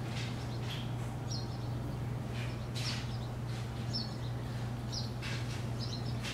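Short high-pitched chirps repeating roughly once a second over a steady low hum.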